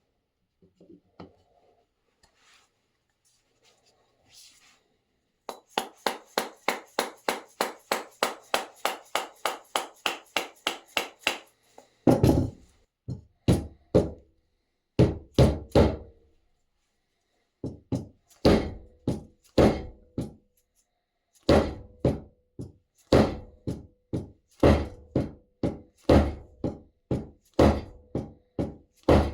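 Hammer blows while fitting an axe head onto its new wooden handle: a quick, even run of light knocks, about four a second, then heavier, deeper blows in uneven groups, some leaving a faint ring.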